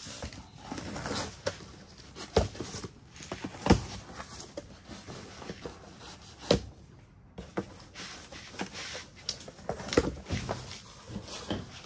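Cardboard boxes being handled and cut open on a table: scattered knocks, scrapes and rustles of cardboard, with about four sharper thumps.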